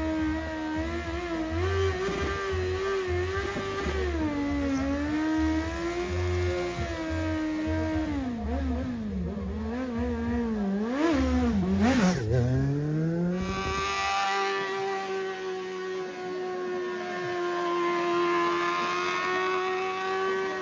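Motorcycle engine held at high revs during a smoky burnout, the rear tyre spinning on the road. The revs waver, dip sharply a few times around the middle, then drop and climb back to a steadier high pitch about two-thirds of the way in.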